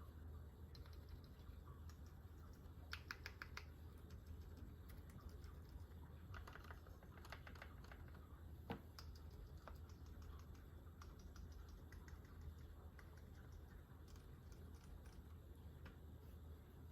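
Typing on a GMMK Pro mechanical keyboard with a brass plate and fully lubed Gazzew Boba U4 silent tactile switches: quiet keystrokes in irregular runs, with one sharper clack a little under nine seconds in.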